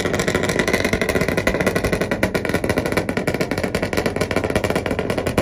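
Chevy Silverado truck held on its two-step launch limiter, the exhaust popping and banging in a rapid stream of cracks over the engine.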